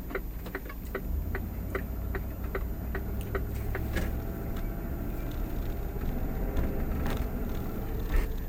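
Car engine running while driving, heard from inside the cabin, with a regular ticking about three times a second that stops about three seconds in; after that only the steady drone of the engine.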